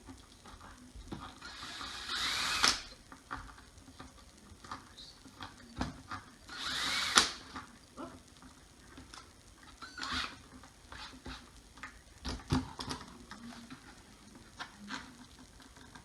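Hand-held power drill running in two short bursts of about a second each, its pitch rising as it spins up, pre-drilling small pilot holes in a wooden board for screw-in cup hooks. Small clicks and knocks of handling come between the bursts.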